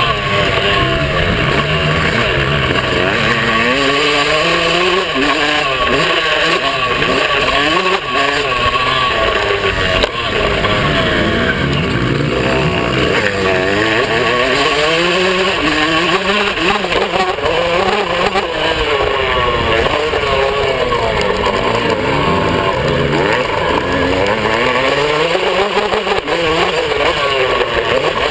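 Yamaha YZ125 two-stroke motocross engine revving up and down again and again as it is ridden through the gears, heard close up from a handlebar-mounted camera.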